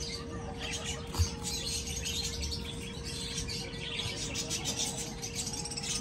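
Many small birds chirping rapidly and continuously over a steady low hum, with one soft thump about a second in.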